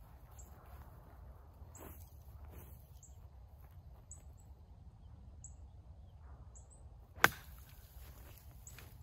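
Footsteps on pine straw, then about seven seconds in a golf iron strikes the ball off a pine-straw lie: one sharp crack.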